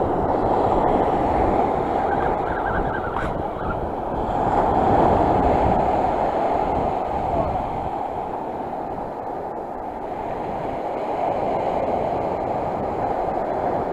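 Sea surf washing on the shore, rising and falling in swells, with wind buffeting the microphone.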